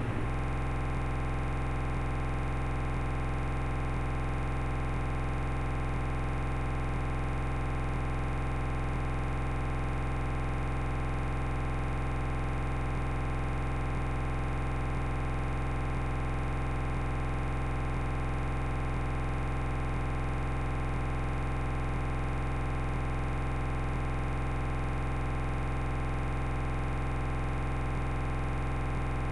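Corrupted recording audio: a steady, unchanging electronic buzz and hiss that holds without any change, the sound track broken down into a frozen drone.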